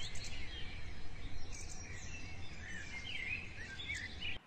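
Several birds chirping and calling over a steady low rumble of outdoor background noise; it all cuts off suddenly near the end.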